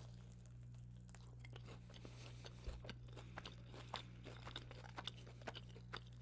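Close-miked chewing of a fried chicken tender: soft crunches and wet mouth clicks scattered irregularly, over a steady low electrical hum.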